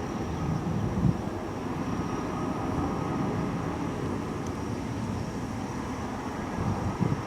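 Strong wind buffeting the microphone: a steady low rumble with stronger gusts about a second in and again near the end.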